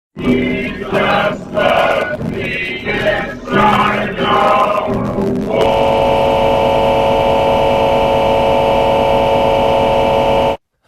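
Loud, dense choir-like music that shifts rapidly for about five seconds, then settles into one loud sustained chord held steady for about five seconds before cutting off suddenly.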